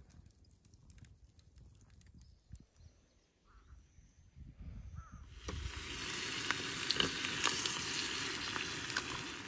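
Bacon and an egg sizzling in a skillet on a cartridge gas camp stove: a steady frying hiss with pops and crackles that starts about halfway through and is the loudest sound. Before it, only faint outdoor sound with a few small clicks.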